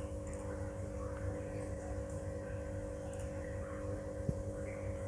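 Steady background hum and hiss of the recording: room tone with a constant low electrical or fan-like drone. One faint click about four seconds in.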